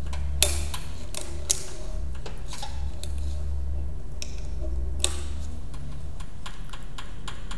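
Handling of a stainless steel canister and a stretched balloon-rubber membrane as it is sealed on with a rubber band: scattered light clicks and taps, a few sharper ones, over a steady low hum that stops near the end.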